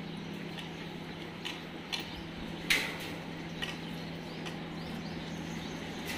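Dogs' claws clicking and tapping on masonry stairs: scattered short ticks with one louder knock about halfway through, over a steady low hum.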